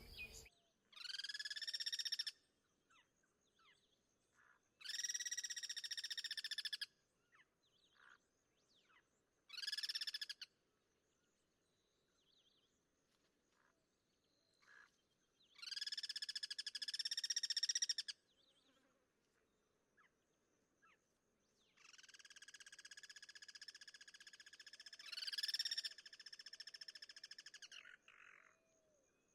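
Guira cuckoos giving harsh, drawn-out grating calls, each a second or two long, repeated every few seconds. Near the end two birds call over each other for several seconds.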